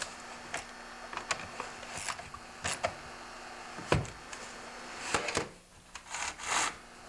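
Scattered metallic clicks of a socket wrench tightening the bar nuts on an Echo CS-330T chainsaw, with a low thump about four seconds in and a couple of short scraping sounds near the end.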